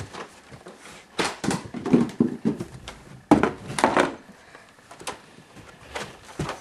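Footsteps going down carpeted stairs, with irregular thumps and rustling of clothes. Two louder spells of noisy thumping come about a second and a half and about three and a half seconds in.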